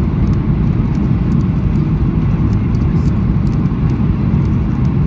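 Boeing 737-800 cabin noise from a window seat over the wing: a loud, steady, low roar of its CFM56 turbofan engines and rushing air, descending on approach with the flaps extended.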